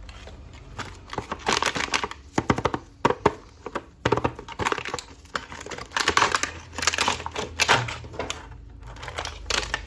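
Plastic toy packaging being handled and opened: crinkling and rustling in irregular bursts, with many quick clicks and taps.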